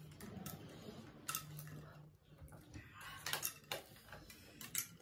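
Light, scattered clinks and clicks of cutlery and dishes at a meal, a handful of separate sharp ticks spread over a few seconds, with a low steady hum underneath.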